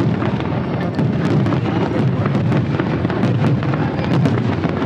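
Fireworks display: a dense, unbroken run of sharp cracks and crackles from bursting shells over a steady low rumble of booms.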